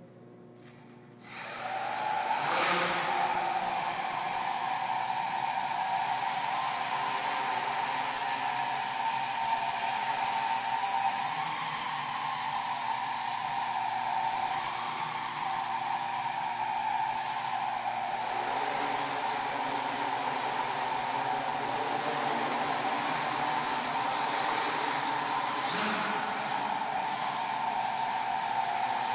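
Quadcopter's four 910kv brushless motors with 10-inch APC propellers spinning up about a second in, then running steadily as it lifts off and flies: a propeller drone with a thin high motor whine over it, shifting a little in pitch.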